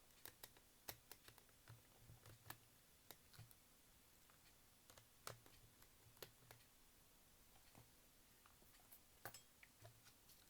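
Faint, irregular clicks and light taps of a small screwdriver and tiny screws on the plastic and metal of a personal cassette player as its screws are taken out.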